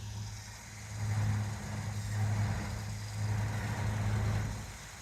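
Vehicle engine running with a steady low hum. It grows louder about a second in and again about three seconds in, then eases off shortly before the end.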